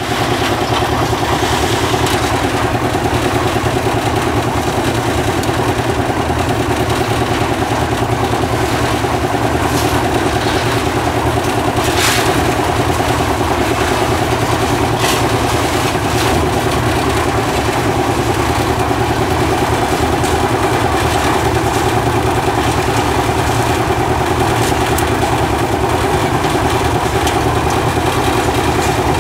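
Portable tilting-drum concrete mixer running steadily, its engine turning the drum at a constant pace, with a few brief sharp knocks and scrapes as pans of material are tipped into the drum.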